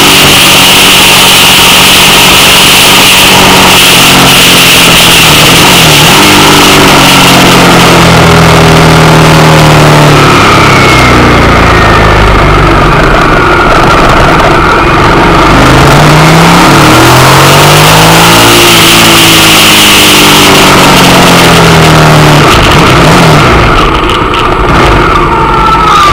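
Suzuki SV650's V-twin engine on the move, its note rising and falling several times as the bike speeds up and slows down, under loud wind rush on the handlebar microphone.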